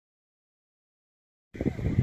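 Dead silence, then about one and a half seconds in a low, uneven rumble of wind buffeting the microphone cuts in abruptly.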